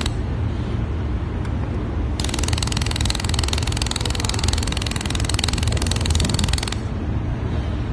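1000 W handheld laser welding gun welding a seam on 2 mm stainless steel: a high, even hiss stops just after the start, starts again about two seconds in and cuts off near the end. A steady low hum runs underneath throughout.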